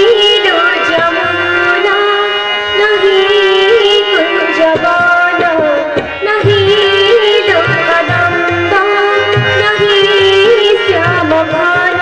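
Odia Krishna bhajan music: tabla drums keep the beat under a sustained, ornamented melody line, with a brief dip about halfway through.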